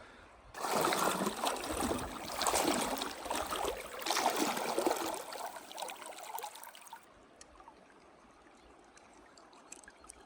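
Flowing river water, a dense rushing noise that begins abruptly about half a second in and cuts off sharply near seven seconds, leaving a much fainter water hiss.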